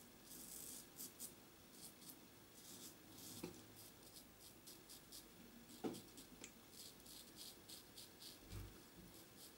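Gillette Tech double-edge safety razor scraping through lathered stubble: faint, crisp scratching in short strokes, two or three a second, with one soft knock about six seconds in.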